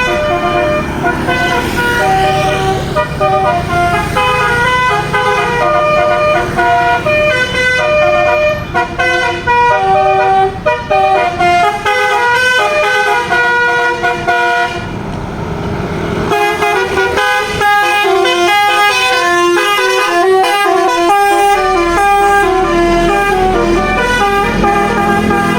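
Bus's Basuri telolet musical horn playing a quick melody, one short note after another. It breaks off briefly about fifteen seconds in, then starts a new tune, with the bus engine running underneath.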